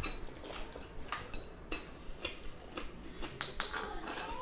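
Spoons and forks clinking lightly against plates and bowls during a meal: a scattered series of short clinks.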